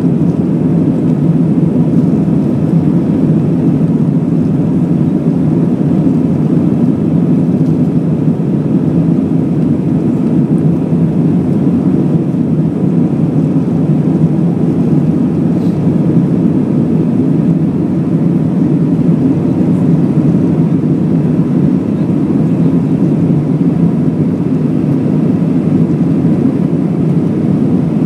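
Steady engine and airflow noise inside the cabin of an Airbus A319 climbing just after takeoff: a loud, even, low drone of the jet engines at climb power with the rush of air, unchanging throughout.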